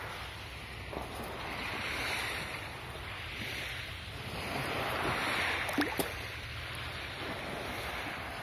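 Calm sea water lapping and sloshing close to the microphone, rising and falling in slow swells, with two short sharp taps a little past halfway.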